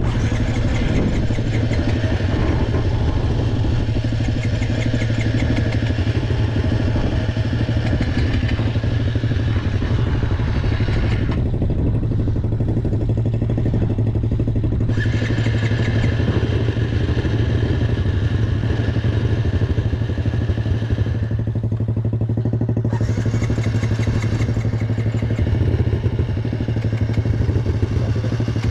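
Dirt bike engine idling steadily.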